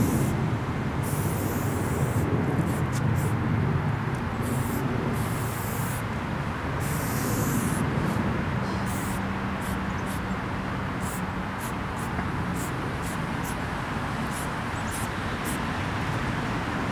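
Aerosol spray paint can hissing in on-off bursts while an outline is sprayed. There are a few longer sprays in the first half, then many quick short bursts. A steady low background rumble runs underneath.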